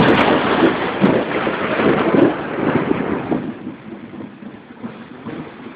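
A sudden loud clap of thunder that rolls on and fades over about four seconds.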